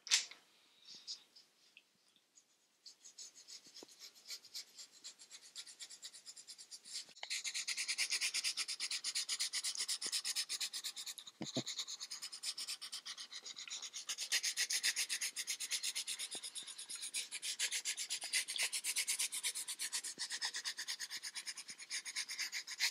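Graphite pencil scratching across paper in rapid shading strokes, faint at first and growing steady and louder from about seven seconds in.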